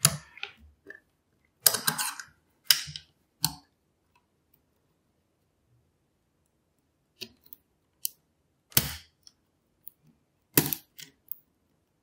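Homemade coat-hanger snap gun being flicked against the pins of a lock under light tension from a tension tool: about ten sharp metallic snaps at uneven intervals, with a pause of about three seconds midway. Each snap knocks the pins upward so they can set at the shear line, the way a snap gun picks a pin-tumbler lock.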